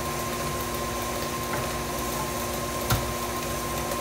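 Tilt-head stand mixer running steadily at raised speed, beating cake batter, with a constant high whine over its motor hum. A single short knock about three seconds in.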